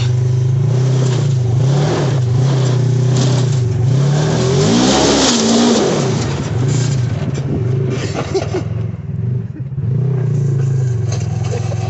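Side-by-side off-road buggy's engine revving hard under load, its pitch climbing and falling back around the middle, while the tyres spin in loose dirt and throw it up.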